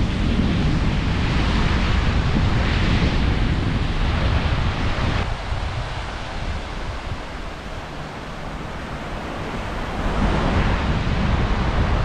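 Wind buffeting the microphone over the wash of Indian Ocean surf breaking on the beach. The wind eases about five seconds in and picks up again near the end.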